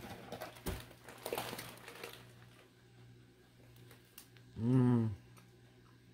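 Light crinkling and handling of a chocolate and its wrapper during the first two seconds, then a short, appreciative hummed "mmm" from a woman tasting a hazelnut praline chocolate, about five seconds in.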